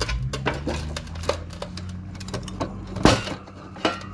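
Light clicks and taps of parts being handled inside an old desktop computer's case, with one louder knock about three seconds in.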